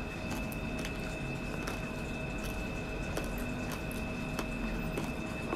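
Faint, irregular crunching clicks of someone chewing crispy deep-fried pork skin with the mouth closed, over a steady faint background hum and a thin high whine.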